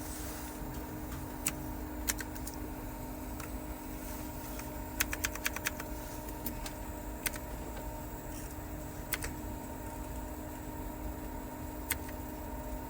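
Clicky blue-switch mechanical keyboard keys pressed one at a time, scattered sharp clicks with a quick run of about six keystrokes about five seconds in. A steady low hum runs under the clicks.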